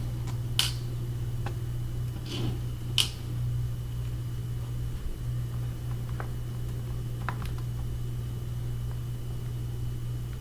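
A few small sharp clicks and taps from a screwdriver and plastic laptop case being handled while screws are taken out, the two loudest in the first three seconds, over a steady low hum.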